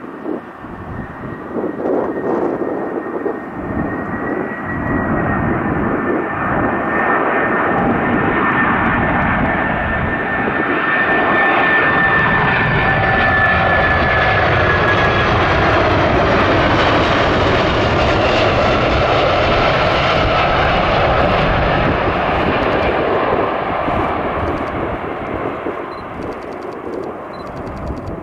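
McDonnell Douglas MD-11F freighter's three jet engines on a landing approach as the plane passes. The engine noise builds, holds at its loudest for about ten seconds, then fades, and the engine whine slowly falls in pitch.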